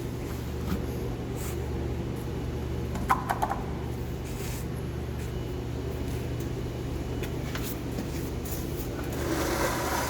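Steady low machine hum in a shop bay, with a few quick clinks about three seconds in and a rustling scrape near the end.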